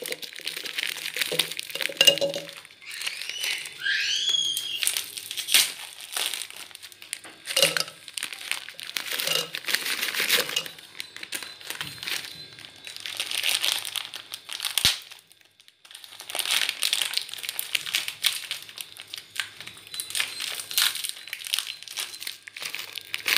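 Plastic Oreo biscuit wrappers crinkling and rustling in irregular handfuls as the packets are opened and the biscuits are taken out by hand.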